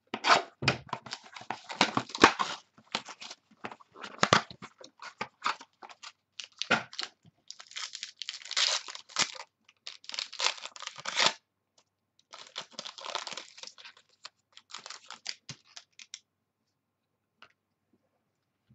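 Sealed trading card pack being torn open by hand: the wrapper crinkles and tears in irregular bursts, with small clicks and rustles as the cards are pulled out and handled. The noise dies away for the last couple of seconds.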